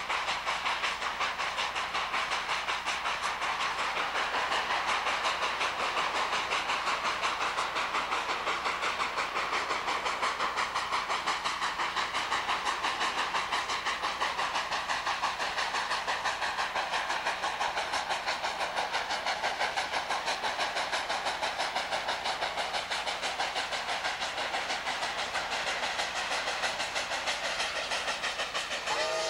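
Norfolk & Western 614, a J-class 4-8-4 steam locomotive, working steadily with fast, even exhaust beats over a rushing hiss of steam. Its steam whistle starts to blow right at the end.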